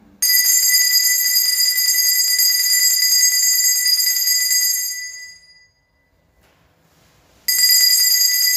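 Altar bells rung twice at the elevation of the chalice during the consecration, marking the elevation. Each ring starts sharply with several high, clear tones and fades over about five seconds; the second comes about seven and a half seconds in.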